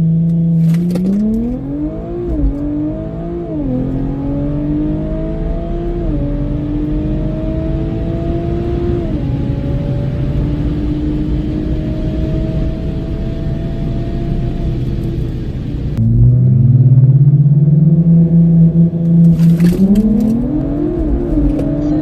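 2018 Audi S5 Sportback's turbocharged 3.0-litre V6, fitted with a TTE710 turbo, heard from inside the cabin on a full-throttle launch. It holds steady revs on the line, then climbs in pitch through four quick upshifts of the automatic gearbox before easing off. Near the end the engine is heard again, louder, holding launch revs and then pulling away on a second run.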